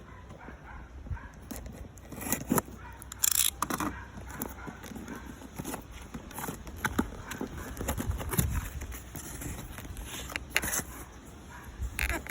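Irregular clicks, knocks and crinkling from packaging being handled as a car amplifier is unboxed.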